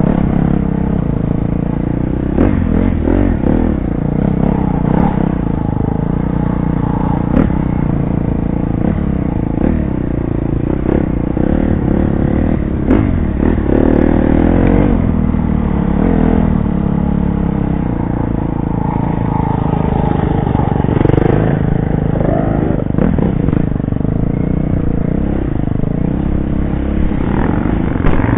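Dirt bike engine heard close up from the rider's helmet, revving up and down again and again as it is ridden hard over rough ground, with clatter and knocks from the bike over the bumps.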